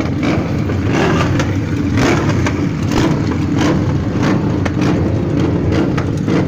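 Several Harley-Davidson V-twin motorcycle engines running together at a race start line, blipped and revved in uneven short bursts over a continuous rumble.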